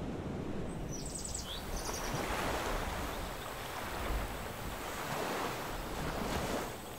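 Sea surf washing in slow swells, with wind rumbling on the microphone. A few brief high chirps come about a second in.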